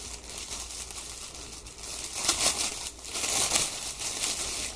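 A clear plastic packaging bag crinkling and rustling in uneven bursts as hands handle the folded pajama pants inside it, loudest about two and three and a half seconds in.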